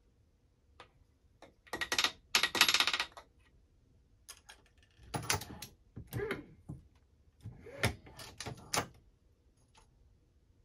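Clicks and rattling clatter of reloading work in three bouts, loudest about two seconds in: a brass case handled at the powder scale, and the Hornady Lock-N-Load AP press cycled with its case-activated powder measure throwing a charge.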